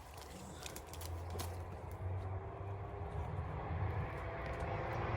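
Engine drone, a low hum with a steady tone over it, growing steadily louder. A few light snaps and rustles of brush come early on.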